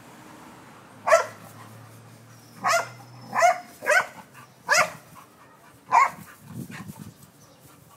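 Dog barking at an iguana it is confronting: six sharp barks spaced unevenly across several seconds, followed by a few softer, low sounds near the end.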